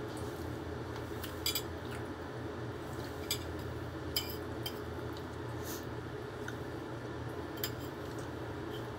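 Eating at a meal: about five light, scattered clinks of tableware over a steady low hum.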